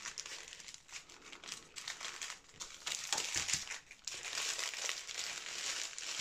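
Crinkling and crackling of thin plastic as a strip of small sealed diamond-painting drill bags is pressed, slid and unfolded by hand on the canvas. The crinkling is loudest in the second half.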